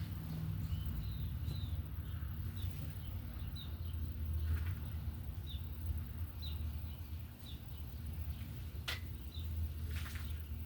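Small birds chirping in short, repeated notes over a steady low rumble, with a sharp click about nine seconds in.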